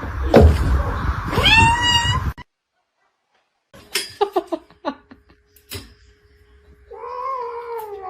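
Domestic cats meowing: one rising meow about a second and a half in, then after a sudden break a few short calls, and a longer meow near the end.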